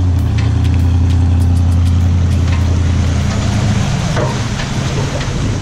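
Engine idling with a steady low hum that fades away about three seconds in.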